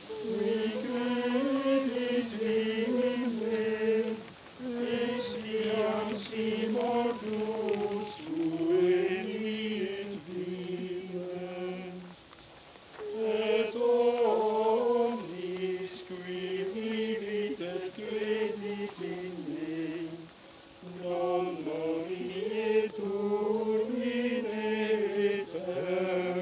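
Male voices singing a slow plainchant in unison, in long phrases with brief pauses between them.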